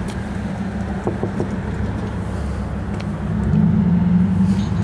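A vehicle's engine running steadily with a low hum, its pitch stepping up and growing louder about three and a half seconds in. A few sharp handling clicks are heard over it.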